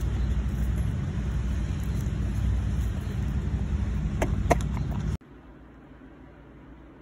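Steady low wind rumble on a phone microphone outdoors, with a few sharp clicks about four seconds in while a husky chews a foil-wrapped stick treat. The rumble cuts off suddenly a little after five seconds, leaving quiet room tone.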